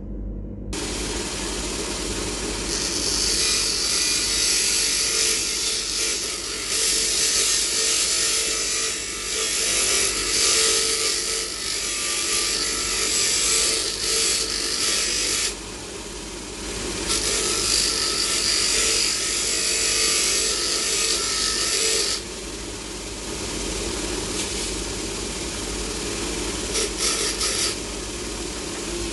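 Metabo bench grinder running while a metal teaspoon is held against the grinding wheel to smooth its edge. The grinding hisses in long stretches: from about three seconds in until past halfway, again for several seconds, and briefly near the end.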